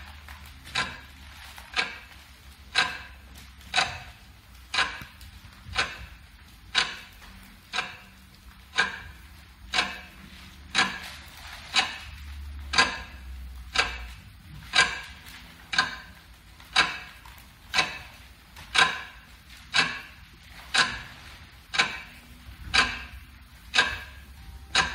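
Clock ticking, about one tick a second, with a low steady hum underneath.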